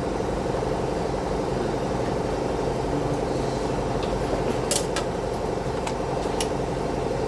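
A steady mechanical hum runs throughout. Over it come a few light, sharp clicks a little past halfway as tools and parts are handled while the recoil starter cover is taken off a small mower engine.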